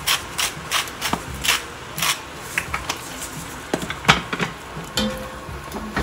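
Salt grinder being twisted over a pot of sautéing spinach: a run of short grinding rasps, about two or three a second at first, then more scattered.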